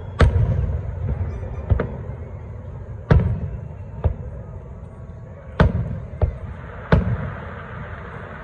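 Aerial firework shells bursting: seven sharp bangs spaced about a second apart, four of them loud, each loud bang trailing off in a low rumble.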